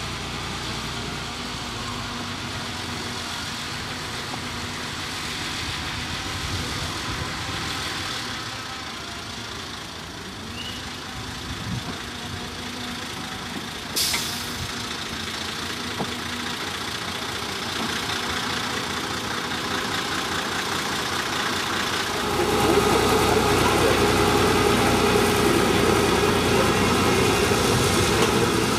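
Diesel railcar train approaching slowly and rolling past close by, its engine running. The sound gets much louder about three-quarters of the way through as the train comes alongside, and there is a single sharp click about halfway.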